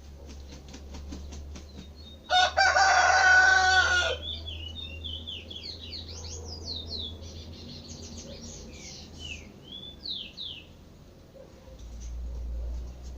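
A rooster crows loudly for nearly two seconds. Around it, small songbirds call and sing: a rapid series of chirps first, then a fast, varied song of quick whistled slurs that stops a little before the end.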